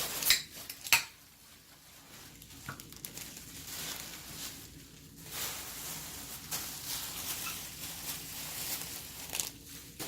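Packaging being handled and crumpled, rustling and crinkling on and off, with two sharp knocks in the first second.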